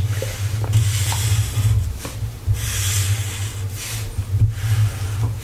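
A marker drawing lines on paper: scratchy rubbing in several separate strokes, each a fraction of a second long, over a steady low hum.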